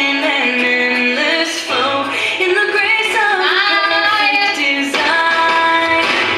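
Pop song with a female lead vocal, held sung notes with a quick sliding vocal run about three seconds in.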